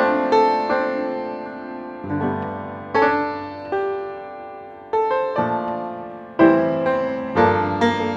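Slow piano music: single notes and chords struck about once a second and left to ring out and fade.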